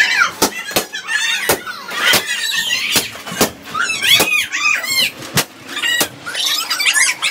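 Rubber balloons being burst one after another: about ten sharp pops at uneven intervals, mixed with children's high-pitched squeals and shrieks.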